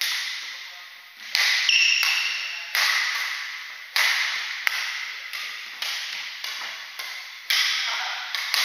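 Badminton rackets striking a shuttlecock during a doubles rally: sharp hits about once a second, each ringing on in a reverberant hall.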